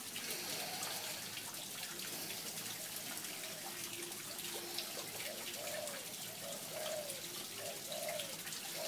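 A man breathing audibly in and out while slowly opening and closing his hand under heavy tension. Faint short tones repeat about once a second from halfway in.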